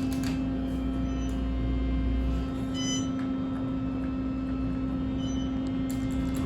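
Elevator car running with a steady hum and a low rumble that stops about two and a half seconds in.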